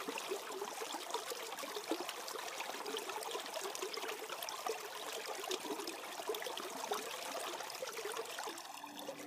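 Water of a shallow, partly iced-over stream trickling steadily, with many small splashes and drips in the flow; it thins briefly near the end.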